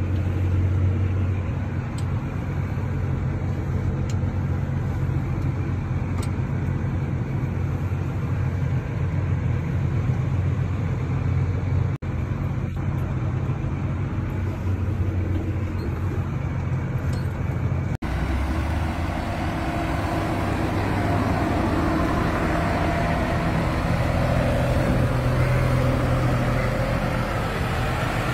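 Tractor engine running steadily, heard from inside its cab with a strong low hum. About two-thirds of the way through this gives way to a column of tractors driving past on a road, a steady mix of engine and tyre noise.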